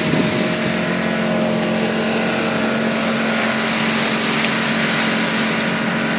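Motorboat under way at speed, its engine running steadily under a constant hiss of rushing water and wind.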